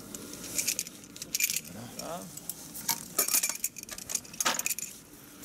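Metal climbing hardware, carabiners and hooks on a harness, clinking and jangling as it is handled, in several short bursts.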